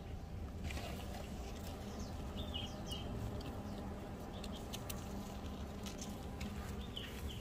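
Honeybees buzzing around open hives in a steady low hum, with scattered light clicks and taps. A few short high chirps come about two and a half seconds in and again near the end.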